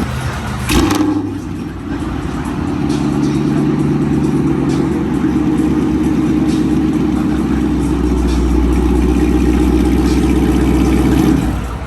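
Dodge Charger R/T's 5.7-litre Hemi V8 running through a full 3-inch catless custom exhaust, a deep steady drone that grows gradually louder, then drops away near the end. A short sharp sound comes about a second in.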